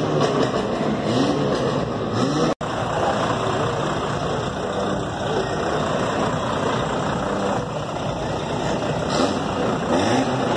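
A motor vehicle engine running steadily amid outdoor bustle, with the sound cutting out for an instant about two and a half seconds in.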